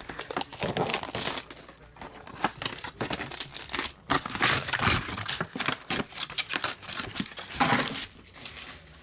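Trading card box packaging being torn open and a pack wrapper crinkled by hand, in a string of irregular ripping and crinkling strokes.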